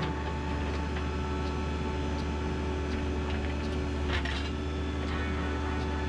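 Backhoe engine running steadily under load while the rear bucket digs into dirt, with a few short knocks and scrapes from the bucket, the loudest about four seconds in.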